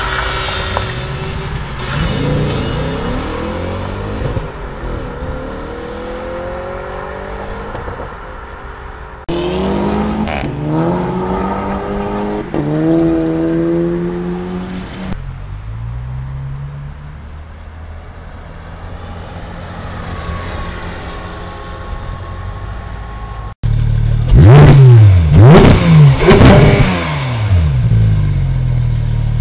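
Several sports-car engines accelerating hard, the pitch climbing and dropping through gear changes as the cars pull away. Near the end comes the loudest part: a Porsche 911 GT3's flat-six revved sharply several times while standing still, which the caption calls too much noise.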